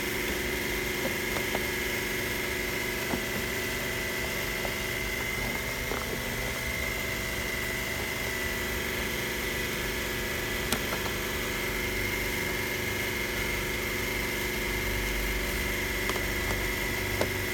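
Steady machine hum with a steady high whine over it, the sound of something running without change, with a faint click or two.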